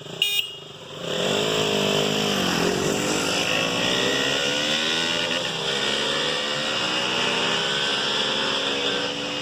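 KTM RC 200's single-cylinder engine revving during a sound test, its pitch dipping and then climbing slowly over several seconds. A short high beep sounds just at the start.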